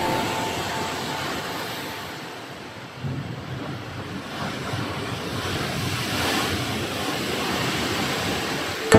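Ocean waves surging, with wind on the microphone; the sound jumps louder about three seconds in and swells again toward the middle.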